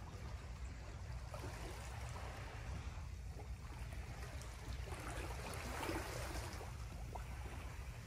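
Calm seawater lapping and trickling over stones at the shoreline, with small splashy ticks over a steady low rumble.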